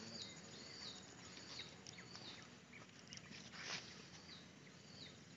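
A bird repeating a short, high whistled note that drops in pitch, several times over a faint outdoor background. A brief swish a little under four seconds in, as a spinning rod is cast.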